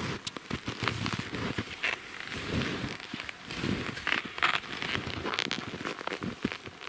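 Skis pushing through snow: irregular crunching and swishing strides, with crackly snaps.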